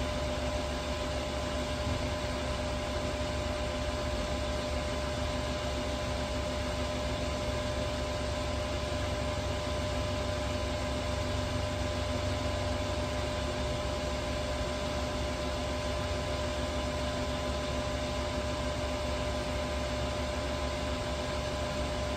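Steady mechanical drone with a constant mid-pitched whine over an even hiss, as from running machinery or ventilation fans.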